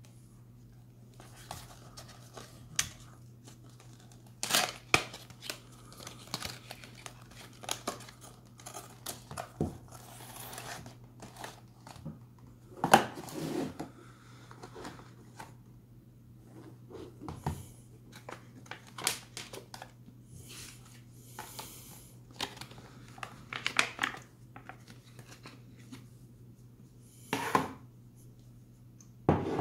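A cardboard flashlight box and its white card inner box being opened and unpacked by hand: irregular rustling, scraping and sliding of card and paper, with a few louder, sharper handling noises.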